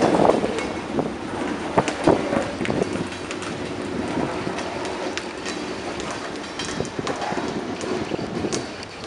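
Covered hopper railcars rolling slowly along the track, steel wheels clicking and clanking over the rails, loudest at first and easing as the cars move away. Wind on the microphone.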